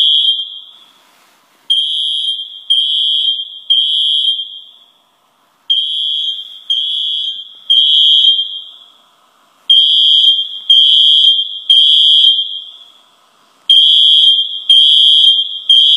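Fire alarm app on an iPhone 5C sounding a smoke-alarm tone through the phone's speaker: a high steady beep three times in a row, a pause, then again, four groups in all. This is the temporal-three pattern used by fire alarms to signal evacuation.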